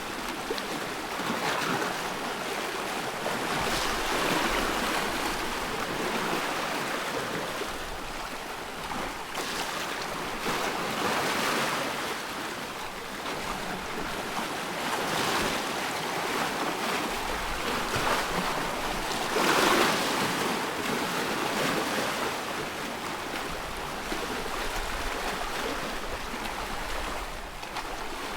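Waves on a loch washing in, swelling and falling every few seconds, with wind.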